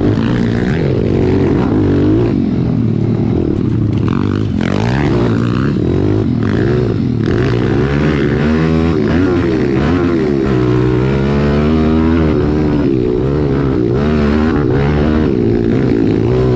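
Pit bike engine running under load on a dirt trail, its revs rising and falling continuously as the throttle works.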